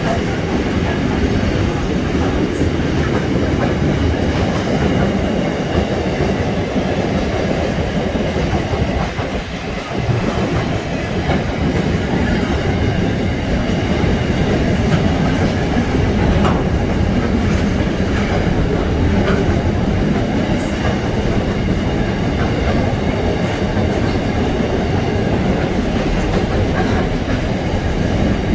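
Container freight train wagons rolling past close by: a loud, steady rumble of steel wheels on the rails. It dips briefly about ten seconds in.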